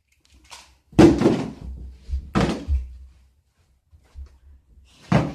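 Three dull thuds, the first and loudest about a second in, another about a second and a half later, and a last one near the end.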